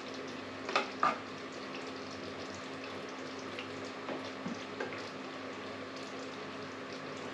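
A metal spoon clinking against a plate and a steel pot as stew is served out, twice in quick succession about a second in, then a few lighter taps, over a steady low hiss.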